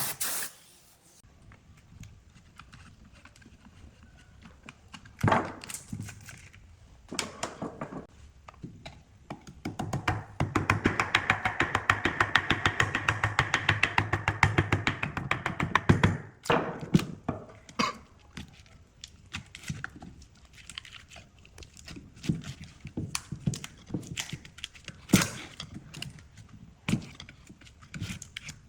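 Scattered knocks and taps, with about six seconds of rapid, evenly spaced tapping starting about ten seconds in.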